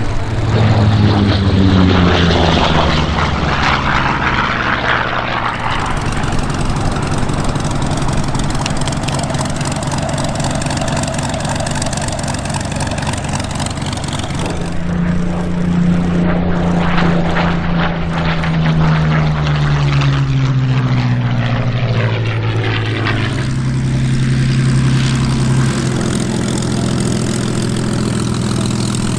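Propeller aircraft engines running loud and steady as aircraft fly past. The engine note slides down in pitch in the first few seconds and again from about halfway to near the end.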